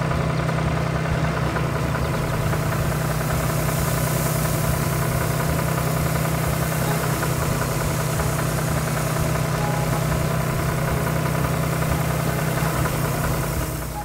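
Tractor engine running steadily at an even low pitch, then cutting off abruptly at the end.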